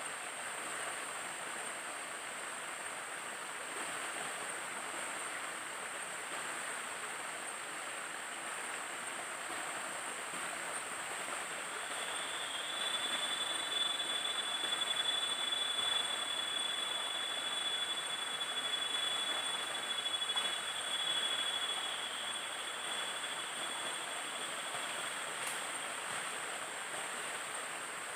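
Small jungle stream flowing, with a low cascade splashing steadily over a rock ledge. Partway through, a high steady tone sounds for about ten seconds, then stops.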